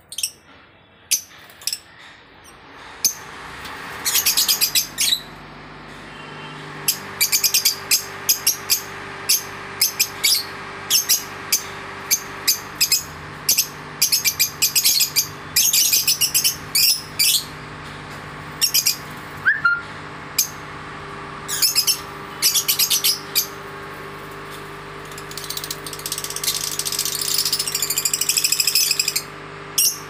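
Lovebirds in an aviary giving shrill, high chirps in quick clusters again and again, with a denser run of chattering near the end. A steady low hum runs beneath them.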